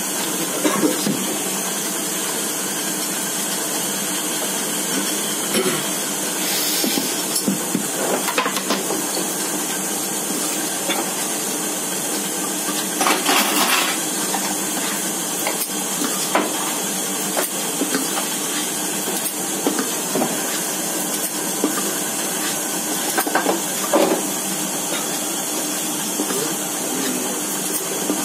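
A metal spoon scraping and knocking against the inside of a stainless steel pot as cake batter is scooped out, in short irregular strokes over a steady background hiss.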